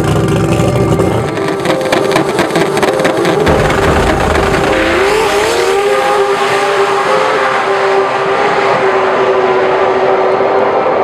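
Drag race car at the starting line, its engine crackling with rapid pops for the first few seconds, then launching at full throttle down the strip. Music plays underneath.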